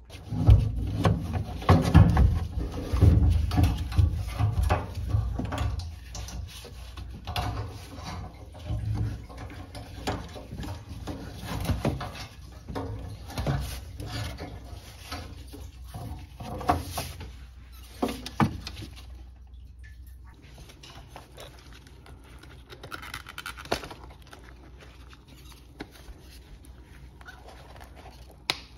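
Hands working on a car's fuel pump assembly: irregular clicks, knocks and rustling of plastic and metal parts, with heavy thumps in the first few seconds and quieter handling after.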